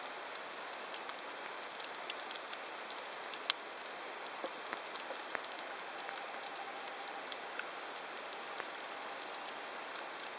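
Underwater crackle over a rocky seabed: a dense, irregular patter of tiny clicks over a steady hiss, with one sharper click about three and a half seconds in.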